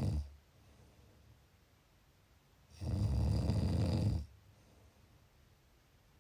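Snoring: the end of one snore right at the start, then one full low snore lasting about a second and a half, a little under three seconds in. The snores recur about every four seconds.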